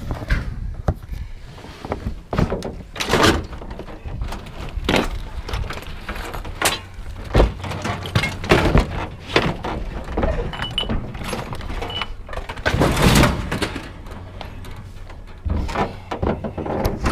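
Scrap metal appliances being handled and shifted: a series of irregular knocks, clanks and thuds, with a longer scraping drag about thirteen seconds in.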